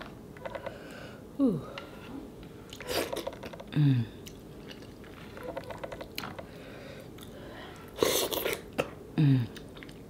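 Mouth sounds of a person eating fufu dipped in egusi soup by hand: wet chewing and lip-smacking, broken by three short falling hums.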